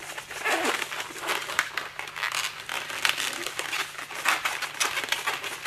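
Long latex modelling balloon squeaking and crackling as it is rubbed and twisted by hand into bubbles.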